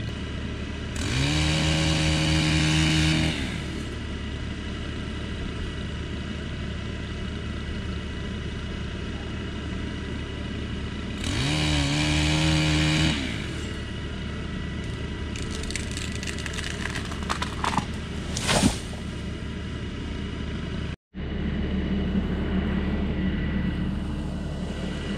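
A small chainsaw revving up twice, about two seconds each, over a steady engine idle: once near the start and again about halfway through. A few light knocks come later.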